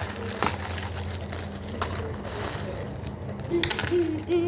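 A new pencil case being opened by hand: packaging and case handled with several sharp clicks over a steady low hum.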